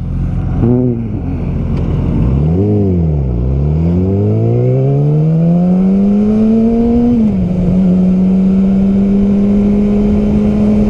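Yamaha R6's inline-four engine, heard from the rider's seat: two quick revs, then a long rise in revs over a few seconds. The pitch drops sharply about seven seconds in at a gear change up, then holds steady at cruise.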